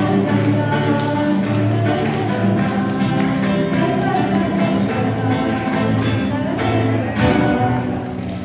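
Music with guitar to the fore: plucked guitar over sustained instrumental notes, playing without a break.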